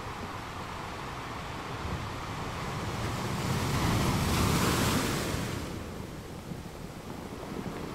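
Small bay waves lapping and washing onto a sandy shore, with wind buffeting the microphone. The wash swells to a louder surge about four seconds in, then dies back.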